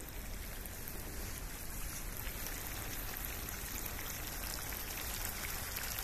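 Fish mixture frying in a pan over a gas-bottle burner: a steady sizzle with faint crackles.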